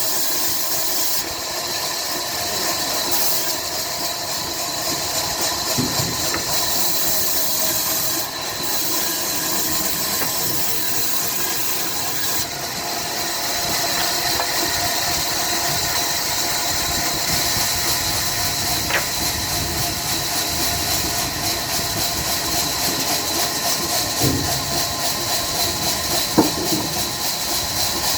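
Diesel-driven sawmill machinery running steadily: a constant mechanical drone with a strong hiss, broken by a few short knocks.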